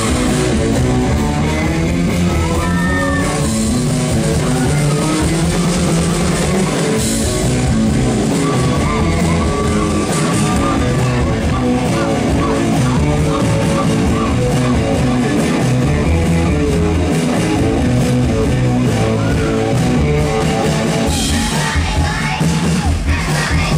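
Live rock band playing through a concert PA: bass guitar, drum kit and keyboards, with singing over a steady beat.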